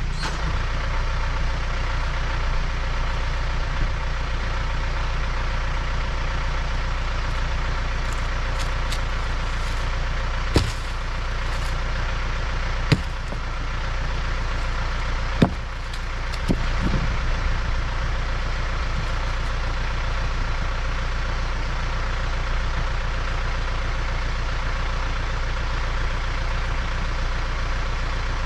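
Compact tractor's diesel engine running steadily, with a few sharp knocks partway through.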